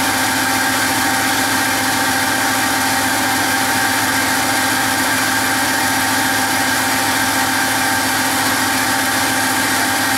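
Greenhouse spray robot running: a steady mechanical hum with a few constant tones, unchanging throughout.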